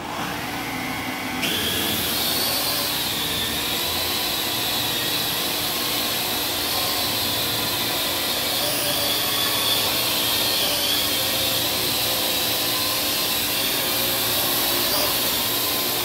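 Parrot AR.Drone quadcopter's four electric motors and propellers spinning up, jumping louder about a second and a half in, then a steady high whirring whine as it hovers and flies, its pitch wavering a little as it manoeuvres.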